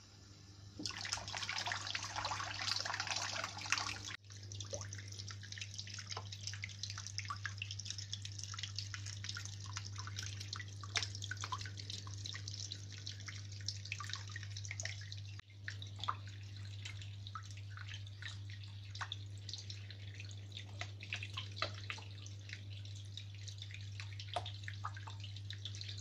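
Small electric fountain pump running with a steady low hum while water trickles and drips from several outlets into a shallow basin. About a second in the water comes louder and gushier for a few seconds, then it settles into steady trickling with many small drips and splashes.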